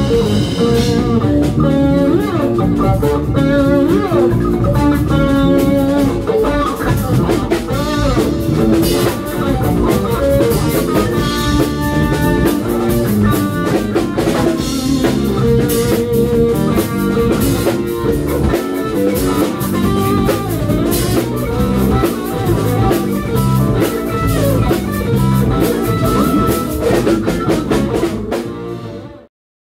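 Live funk band playing an instrumental passage: electric guitar, electric bass and drum kit. The music fades near the end and then cuts off abruptly.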